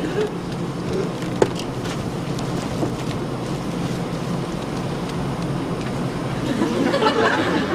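Steady airliner cabin hum, with a single light click about a second and a half in and a brief swell of other noise near the end.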